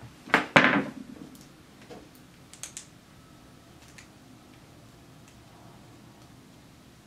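Small hard parts being handled on a desk: a loud clatter of two knocks about half a second in, followed by a few light plastic clicks as 3D-printed antenna mounts are fitted together.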